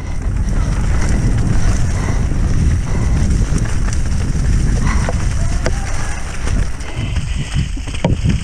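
Wind buffeting the microphone of a camera on a mountain bike descending at speed, a constant heavy rumble with hiss, mixed with the irregular clatter of the Coluer prototype bike over rough trail. A few sharp knocks come near the end.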